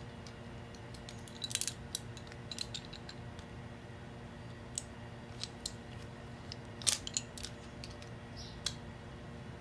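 Scattered light metallic clicks and clinks of a wrench and gas fittings being handled while a propane quick-connect is fitted, the loudest clink about seven seconds in, over a low steady hum.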